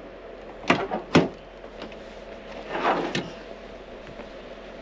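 Pickup truck tailgate being unlatched and let down: two sharp clunks about a second in, then a longer scraping sound near three seconds that ends in a click.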